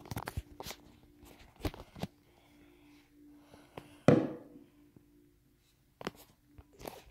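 Plastic slime jar and its screw cap being handled: scattered clicks and knocks, with one louder thump about four seconds in.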